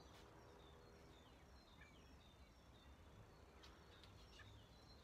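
Near silence: faint outdoor background with a few short, distant bird chirps.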